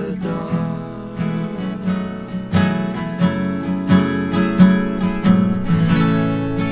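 Two acoustic guitars strummed together, chords ringing between the strokes.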